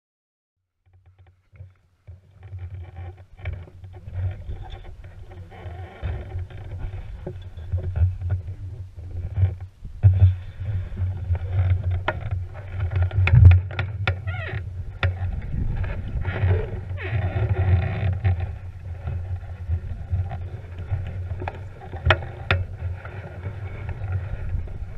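Wind buffeting the microphone of a camera mounted on a hang glider at launch: a steady low rumble that swells and eases with the gusts, with scattered knocks from the glider frame.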